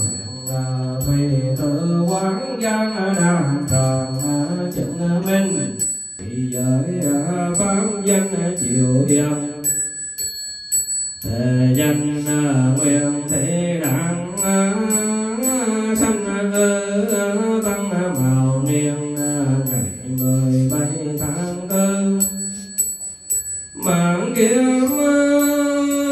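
Vietnamese Buddhist memorial chanting: a monk's voice through a microphone, singing the liturgy in long, melodic lines and pausing briefly for breath a few times.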